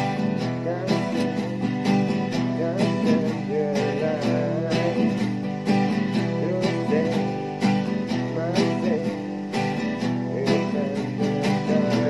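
Background music: a song with plucked acoustic guitar and a wavering melody line over a steady accompaniment.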